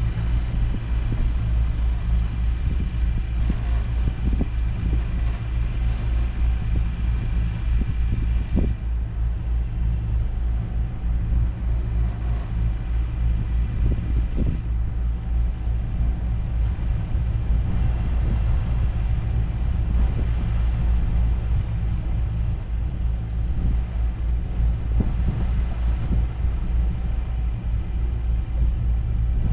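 Lagoon 450 F catamaran's inboard diesel engines running steadily under way, a continuous low rumble.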